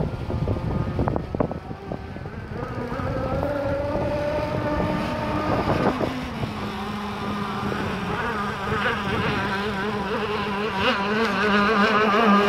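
Gas-powered RC speedboat's two-stroke engine with a tuned pipe running flat out on the water, a high buzzing whine that grows louder as the boat comes closer near the end. Wind rumbles on the microphone at first.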